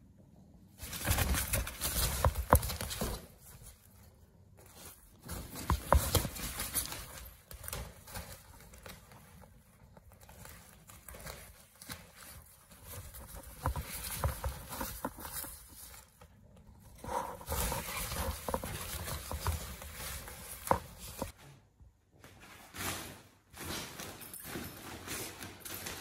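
Crinkly fabric of a cat play tunnel rustling and crackling as a Savannah kitten scrambles about in it, with patters and scratches of paws on the fabric. The noise comes in irregular bursts with short quiet gaps between.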